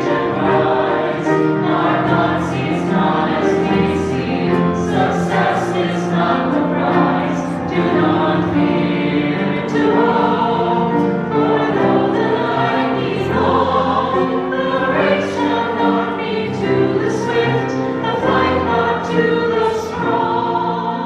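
A church choir singing a hymn, many voices holding long notes and moving together from chord to chord, with crisp 's' sounds in the words.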